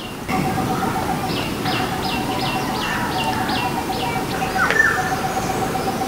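Birds calling: a quick run of about nine short, falling chirps, about four or five a second, over a steady pulsing note.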